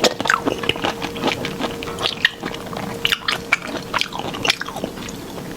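Close-up chewing of sauce-coated shrimp: irregular wet smacks and small clicks from the mouth, the sticky sweet-chili sauce squishing between bites.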